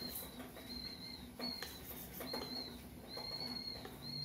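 A metal spoon stirring thin batter in a ceramic bowl, with a few soft clinks against the bowl. A thin, high whistling tone repeats about once a second in the background.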